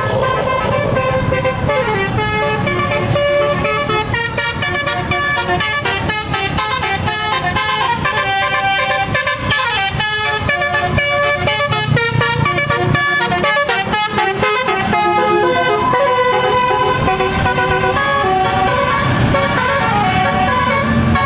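Bus 'telolet basuri' musical air horn playing a tune: several horn notes changing in quick steps, over the low rumble of the bus engine.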